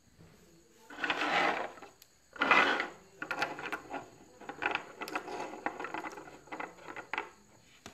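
Plastic lipstick tubes being set down and lined up on a tabletop: a run of small clicks and taps over the last few seconds, after two louder rushes of rustling noise near the start.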